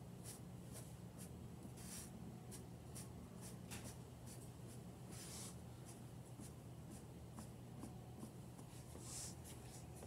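Faint quick taps of a metal ball-ended dimple tool pressed again and again into a soft clay slab, about two to three a second, over a low steady hum.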